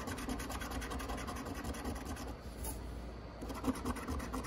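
Scratch-off lottery ticket being scratched: steady, rapid rubbing strokes across the ticket's scratch-off coating, with a few sharper scrapes near the end.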